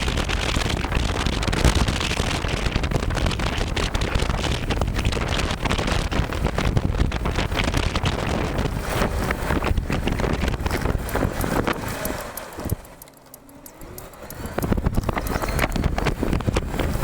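Wind rushing over the microphone, a dense, rough noise that drops away for a moment about thirteen seconds in and then comes back.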